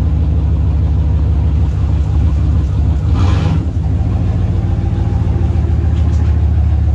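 1993 Cadillac Fleetwood's 5.7-litre V8 running cold with a steady low exhaust rumble as the car pulls slowly away. A brief rushing noise comes about three seconds in.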